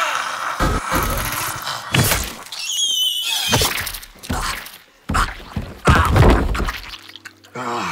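A run of heavy thuds and crashing impacts from a violent struggle, with a short high wavering shriek about three seconds in.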